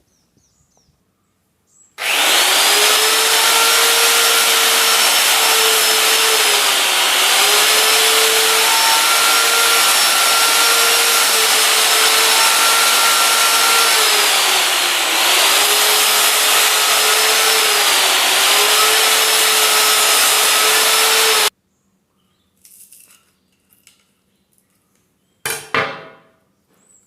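A small electric power cutting tool runs for about twenty seconds, cutting through the old copper coil windings of a ceiling fan's stator. Its whine sags in pitch several times as it bites into the windings, and it stops abruptly.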